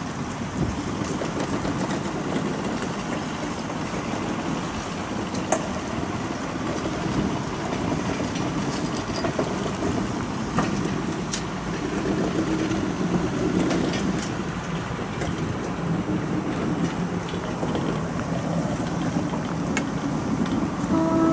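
Coaches of a Class 306 electric multiple unit rolling slowly past while being shunted, with a steady low rumble and occasional sharp clicks from the wheels over the track.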